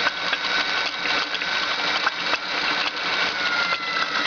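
Electric drill spinning the oil pump of a Honda Steed 400 engine: a steady motor whine that sags slightly in pitch near the end, with irregular clicks and knocks. The knocking is the noise the owner traces to the oil pump, even though the pump delivers oil perfectly well.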